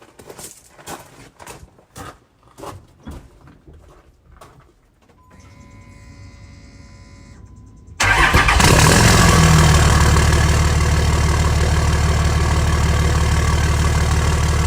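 Dodge diesel pickup engine started about eight seconds in, catching at once and settling into a loud, steady idle through a homemade 6-inch axle-dump exhaust tip with a can-lid restrictor plate on its end. Before it, a run of short knocks and then a faint hum.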